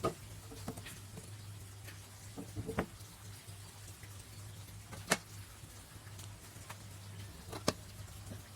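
Scattered sharp clicks and light knocks of materials and tools being handled and set down, four of them louder than the rest, over a steady low hum.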